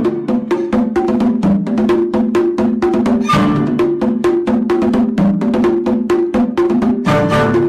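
Upbeat background music built on fast, even percussive strikes like a wood block, over a plucked, bouncy melody.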